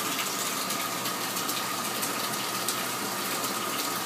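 Bathtub tap running, a steady rush of water with a faint steady whistle.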